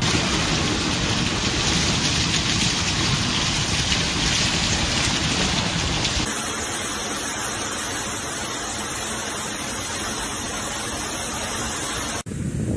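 Heavy rain pouring down in a steady hiss, its sound changing about six seconds in. Near the end it cuts abruptly to wind buffeting the microphone.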